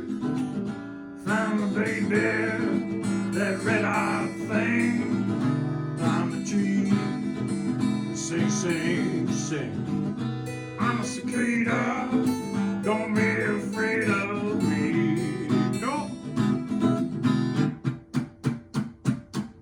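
Instrumental break in an acoustic blues song: a strummed acoustic guitar with a wavering melody line over the chords. Near the end the playing turns to short, choppy strums, about five a second.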